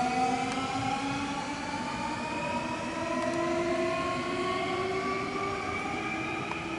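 Nankai electric train's inverter-driven traction motors whining, several tones climbing slowly together in pitch as the train accelerates, over the rumble of the train running on the rails.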